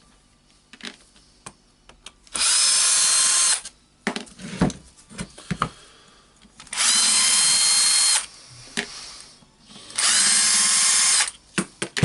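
Cordless drill-driver spinning out housing screws from a rotary hammer in three runs of about a second and a half each, its motor whining steadily. Between the runs come small clicks and knocks as the screws and parts are handled.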